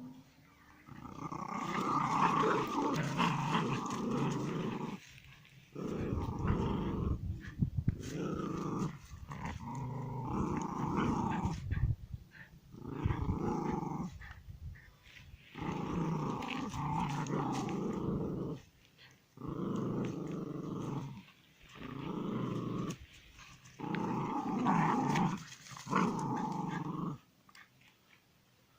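Dog growling in about nine long bouts of one to four seconds each, with short pauses in between, stopping shortly before the end.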